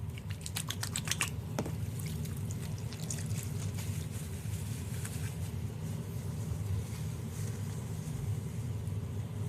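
A quick run of small clicks and taps in the first second or so, as a soap bottle is handled, then soft water sounds of a soapy washcloth working in a bathtub. A steady low hum runs underneath.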